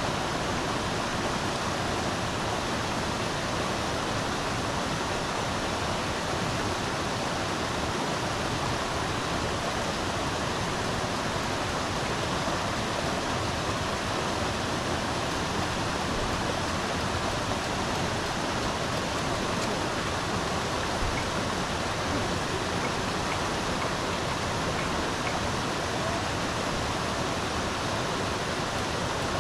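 Steady rush of flowing river water: an even hiss with no distinct splashes or clicks.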